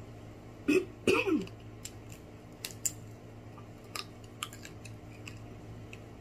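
Two loud throaty coughs from the eater about a second in, then scattered light clicks and cracks as fried lobster is picked apart and eaten.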